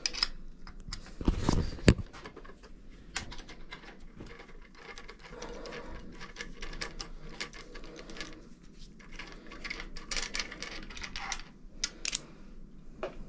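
Small metal bicycle parts and hand tools clinking and tapping as they are handled, in scattered clicks with a louder knock and rattle about one and a half to two seconds in.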